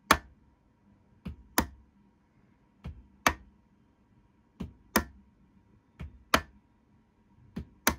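Gaugemaster PM2 solenoid point motor fired from a capacitor discharge unit, throwing an N gauge turnout back and forth: sharp clicks in pairs, a lighter click then a louder snap, about every one and a half seconds. The motor is switching the point cleanly and working properly.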